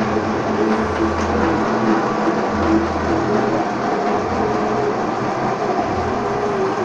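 Metal-working engine lathe running: a steady mechanical whir with a slightly wavering hum and a low throb that swells and fades every second or so.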